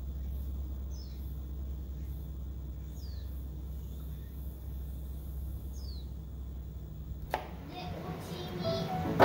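Garden ambience: a steady low rumble with three short, falling bird chirps spaced a couple of seconds apart. About seven seconds in, a sharp click and then background music take over.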